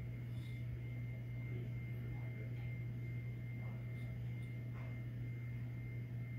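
Steady low electrical hum with a thin, faint high whine above it.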